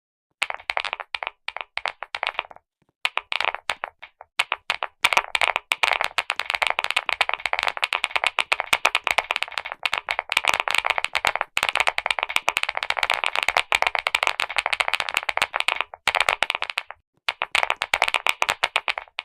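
Clicky keyboard keys pressed in fast, dense runs, like rapid typing, with a few short pauses between runs.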